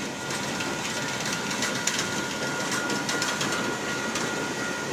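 Freight train rolling along the rails, a steady rumble with rattling clicks from the cars and wheels and a faint steady high squeal.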